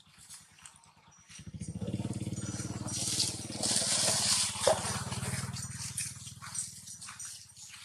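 A motor vehicle's engine passing: a low, rapidly pulsing engine sound comes in about a second and a half in, is loudest around the middle, and eases off toward the end.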